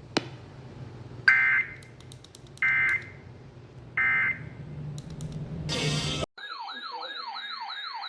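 Emergency Alert System end-of-message signal closing an Amber Alert broadcast: three short, identical buzzy data bursts about a second and a half apart. A brief hiss follows, then after an abrupt cut a siren starts, sweeping rapidly up and down about two and a half times a second.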